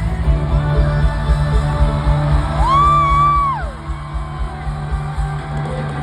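Live pop concert music through a loud PA, with heavy bass. A singer holds one long note a few seconds in and then slides down off it, while the crowd whoops and shouts.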